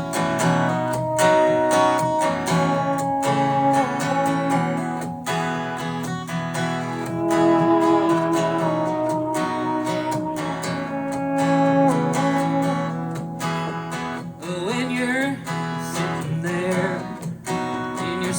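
Strummed acoustic guitar playing a country-rock intro in a steady rhythm. A wavering, bending melody line comes in about three-quarters of the way through.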